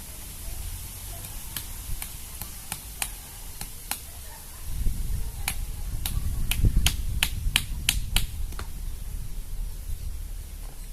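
Wind buffeting the microphone, a low rumble that swells about halfway through, with a run of sharp, irregular clicks that come closer together in the middle and stop a couple of seconds before the end.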